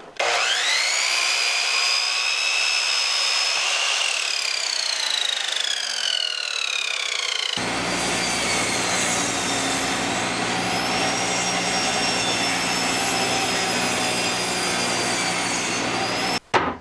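A sliding miter saw spins up with a rising whine and cuts through a board, its whine falling in pitch during the cut. About halfway through, the sound changes abruptly to a table saw running steadily with a low motor hum as a board is ripped through the blade, cutting off abruptly near the end.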